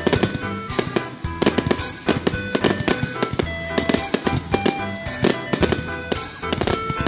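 Fireworks going off in rapid, dense volleys of bangs and crackles, mixed with loud music that has a steady bass line.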